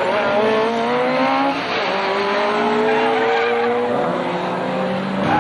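1960s saloon racing cars accelerating hard out of a corner, engine pitch climbing as they rev. The note drops for a gear change about a third of the way in, then climbs again, with a second car's engine joining lower down near the end.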